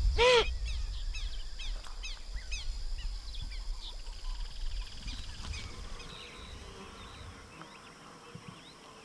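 A capybara gives one short alarm call that rises and falls in pitch as it splashes in the water. Forest birds then chirp repeatedly and insects buzz, the sound growing fainter.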